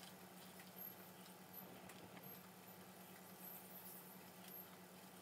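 Near silence: a faint low steady hum, with a few small scattered clicks and rustles from fingers handling string as it is wound around a model oar.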